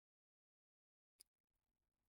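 Near silence: a gap between narrated lines, with a single faint click a little over a second in.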